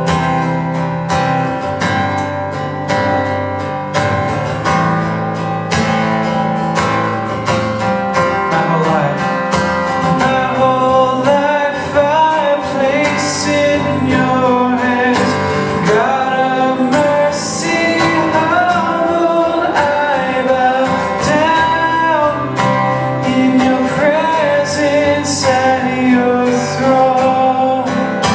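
Steel-string acoustic guitar strummed steadily as a worship-song accompaniment, with a man singing over it from about eight seconds in.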